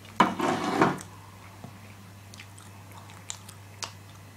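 A man taking a spoonful of canned food into his mouth and chewing it: a brief loud noisy sound in the first second, then faint wet clicks of chewing.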